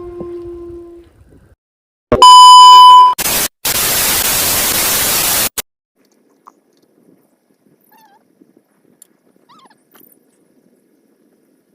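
A drawn-out low tone fades out, then a click and a very loud steady electronic beep for about a second, followed by about two seconds of loud hissing static that cuts off abruptly. These are edited-in sound effects.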